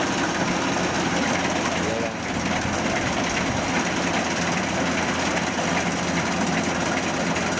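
Kubota DC105 combine harvester's diesel engine and threshing machinery running steadily as it moves slowly through the rice.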